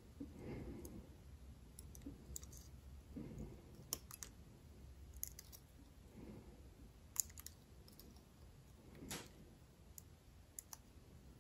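A few faint, sharp clicks of a single-edge razor blade against a steel ruler and a photo-etched metal ladder strip as the blade levers the rungs up to bend them, over quiet room tone.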